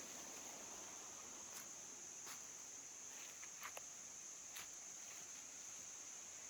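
Faint outdoor ambience: a steady high-pitched insect drone, with a few light clicks scattered through the middle.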